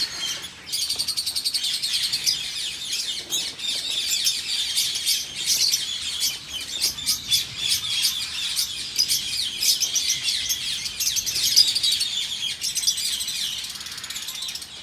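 A flock of lovebirds chattering, many high shrill chirps overlapping without a break.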